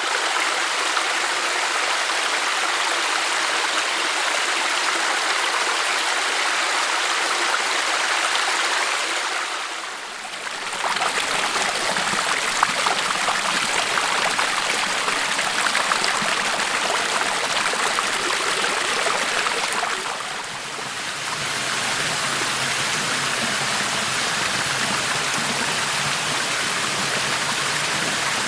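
Rainforest creek water flowing in a steady, continuous rush. The sound dips briefly about ten seconds in and again about twenty seconds in, changing character a little after each dip, with a deeper rumble in the last part.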